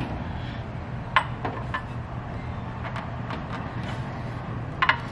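A few sharp clicks and taps from hands working a rubber grommet with coax cable back into its hole in the Jeep's body, over a steady low hum. There are single clicks about a second in and around three seconds, and a quick double click near the end.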